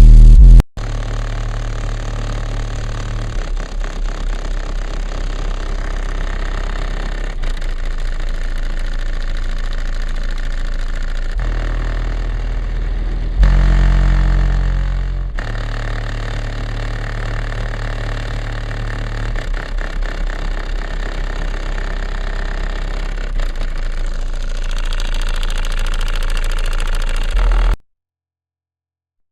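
Car-audio subwoofers playing bass-heavy music loud, deep bass notes changing every few seconds. The sound cuts off suddenly near the end.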